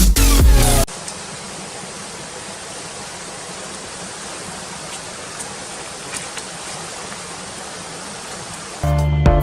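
Electronic dance music cuts off about a second in, giving way to a steady, even rush of running water. Beat-driven music comes back in near the end.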